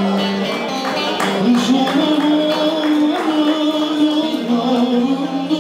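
Live music: a man singing a slow melody into a microphone over plucked string accompaniment.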